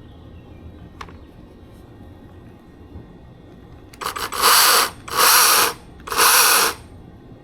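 Atlas 80-volt brushless cordless chainsaw spun up in short bursts, with a few quick stutters and then three blips of about half a second each with short gaps: the chain running free on trigger squeezes, not cutting wood. A faint click comes about a second in.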